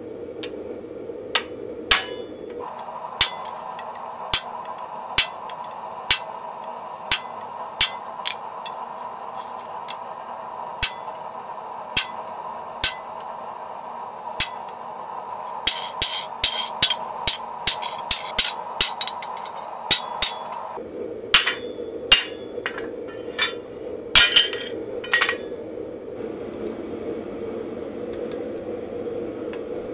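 Hand hammer striking a hand-held tool set on a hot steel knife blank: single ringing strokes about a second apart, then a quicker run of lighter blows, then a few scattered strikes. A steady hum runs behind.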